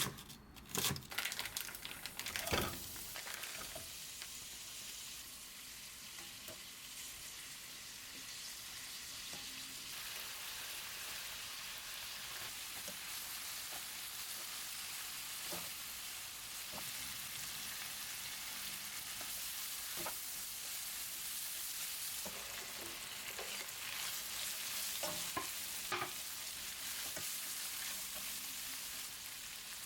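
A few sharp clicks in the first couple of seconds, then food sizzling steadily as it fries in a pan, with occasional light utensil clicks.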